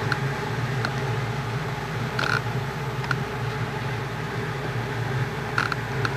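Cinemeccanica 35/70mm film projector running: a steady low mechanical hum with scattered faint clicks and a couple of brief higher tones.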